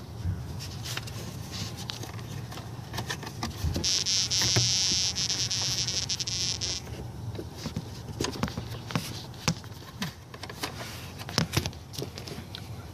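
Small clicks and rubs of hands moving rubber hoses in an engine bay. A loud, high buzz of unclear source starts about four seconds in and lasts about three seconds.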